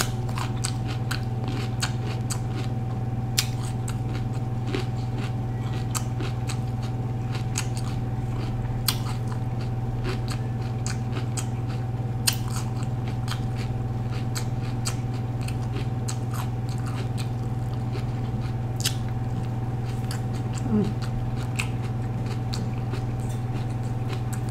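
Close-up chewing of a mouthful of raw bell pepper, with scattered small crunches and wet mouth clicks, over a steady low hum.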